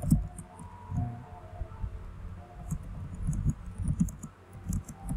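Typing on a computer keyboard: an irregular run of key clicks with dull thumps, the loudest just after the start.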